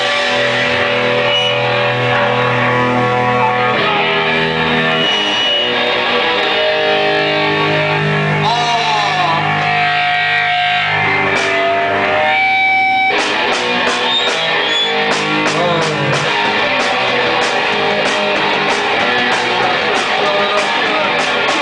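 Live rock band playing loud, distorted electric guitar chords in a small bar, with sliding pitch bends. About halfway through, a steady beat of hits comes in, about two a second.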